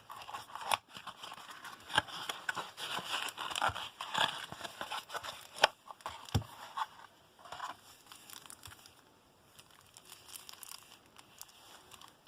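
Packaging of a trading-card battle pack being torn open and crinkled by hand: dense, irregular crackling and tearing for the first few seconds, then sparser rustles and clicks as the cards are taken out.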